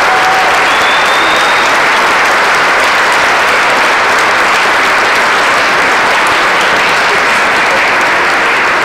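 A large crowd applauding steadily, a dense unbroken clapping.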